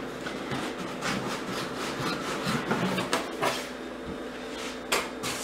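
Lid of a long cardboard box being pulled off: cardboard rubbing and scraping against cardboard, then a few sharp knocks near the end.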